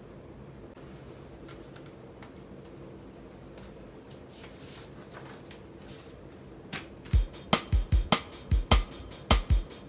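Faint paper rustling and light taps at a low level, then background music with a strong, steady drum beat comes in about seven seconds in and becomes the loudest sound.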